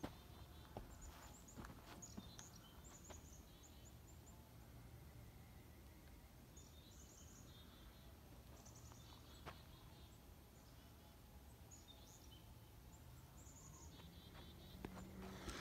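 Faint outdoor ambience: small birds chirping in short, repeated high trills, over a low steady rumble.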